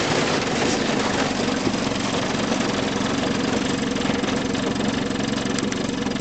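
Outboard motor running steadily as the boat pushes through thin lake ice, with a constant crackle and scrape of breaking ice plates against the hull.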